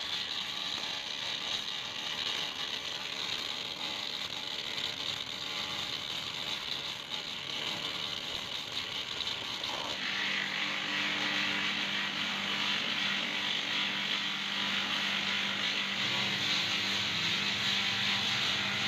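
Electric bench-grinder motor running with a sanding disc, a wooden handle held against it. About ten seconds in the sound changes to a steadier machine hum.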